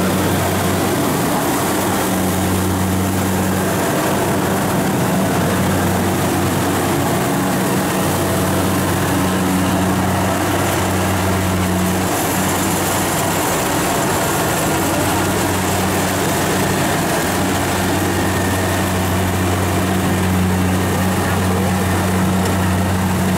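Kubota DC-70 combine harvester's diesel engine running steadily under load while it harvests rice, a continuous drone with the clatter of the working machinery; the drone shifts slightly about halfway through.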